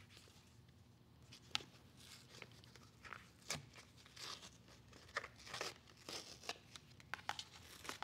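Fabric lining and stiffening support material being peeled and torn away from a handbag's leather panel by hand: soft, irregular ripping and crinkling, in short uneven bursts.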